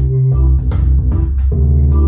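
Band music with electric guitar, organ, bass and drums, played through Mission 701 bookshelf speakers.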